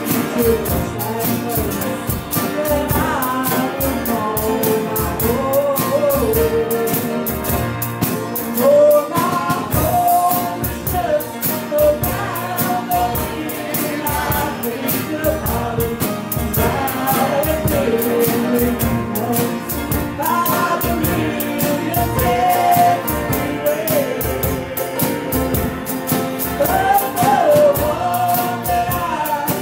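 A woman singing a slow gospel song, accompanied by strummed acoustic guitar and a steady beat.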